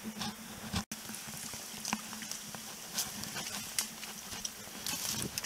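Footsteps and rustling through dry grass and undergrowth, with scattered irregular crackles and twig snaps.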